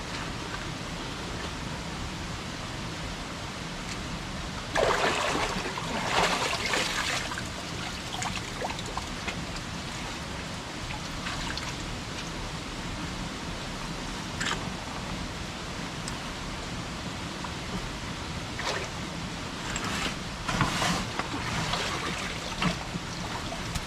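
A gorge creek running and trickling steadily, with two stretches of louder water splashing, about five seconds in and again about twenty seconds in, as people wade through it.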